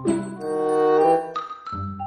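Instrumental background music: a melody of held, pitched notes changing every half second or so.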